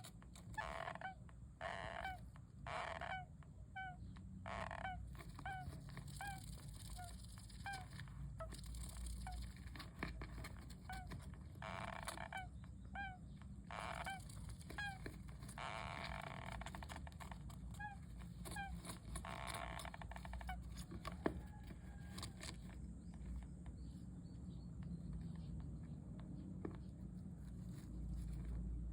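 Syrian hamster snoring: small squeaky, honk-like breaths repeating about once or twice a second, mixed with soft breathy puffs, dying away near the end.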